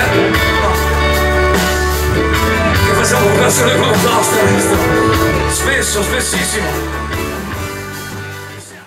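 Live rock band playing, with electric guitars, bass guitar and drum kit; the music fades out near the end.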